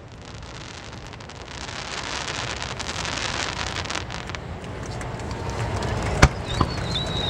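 Aerial fireworks: a dense crackling hiss that builds from about a second and a half in, one sharp bang a little after six seconds, then a high whistle that slides slowly lower near the end.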